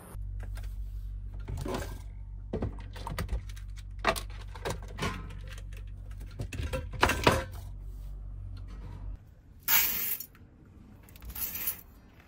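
Clicks, knocks and light clatter of small objects being handled in a small space, over a steady low hum that cuts off about nine seconds in. A few louder rustling bursts follow near the end.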